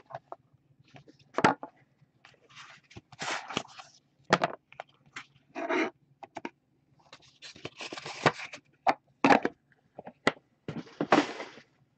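Hands handling and opening a small cardboard trading-card box: scrapes and brief rustles as the contents are slid out, with scattered sharp taps and clicks as the box and the card stack are knocked against and set down on a wooden table.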